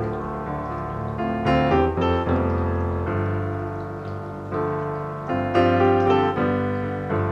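Background piano music: gentle melody notes and chords struck every half second or so, each ringing out and fading.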